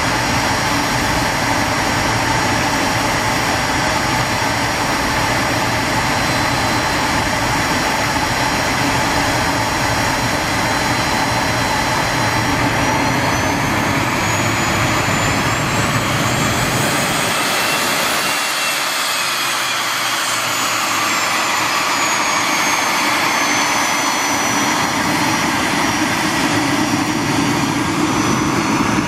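Boeing 737 business jet on final approach with gear down, its twin jet engines making a steady rushing noise with a high whine. About two-thirds of the way through, a high whine rises and then falls.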